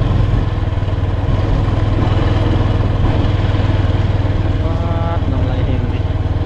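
Small engine running steadily with an even low chug, just after starting up.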